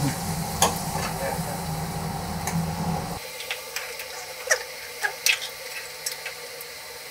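Food frying in a pot on the stove, sizzling with scattered sharp crackling pops. The low hum underneath cuts out about three seconds in.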